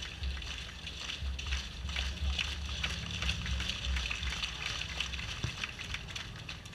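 Stadium crowd noise from the stands: a steady murmur of chatter with scattered short claps. Gusting wind rumbles on the microphone.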